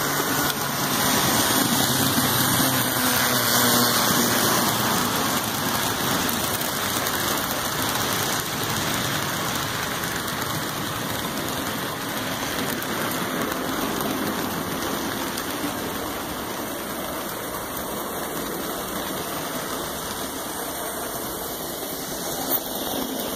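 HO scale model train running on its track: a steady rushing noise of metal wheels rolling on the rails and the small motor, a little louder in the first few seconds.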